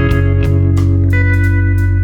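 Background music led by guitar over a steady beat, with a chord change about halfway through.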